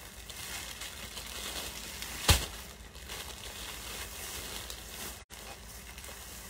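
Steady background noise of a room with one sharp knock about two seconds in, and a split-second cutout of all sound a little after five seconds.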